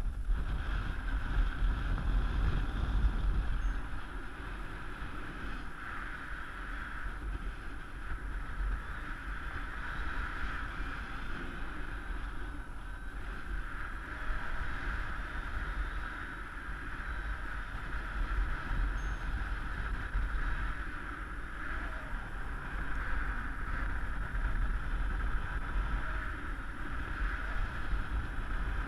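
Wind from flight under a paraglider rushing over the camera's microphone: a steady low buffeting rumble with a band of hiss above it, louder for the first few seconds.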